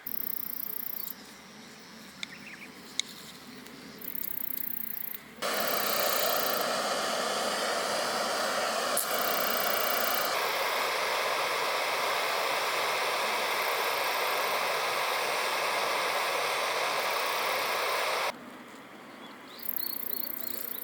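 A steady hiss starting abruptly about five seconds in and cutting off abruptly near the end, between quieter stretches of outdoor background with faint high-pitched tones.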